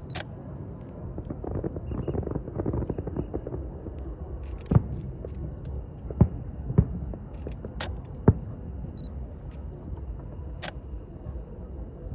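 Fireworks going off: a run of crackling about two seconds in, then a series of sharp booms of bursting shells spaced a second or so apart, over a steady low rumble.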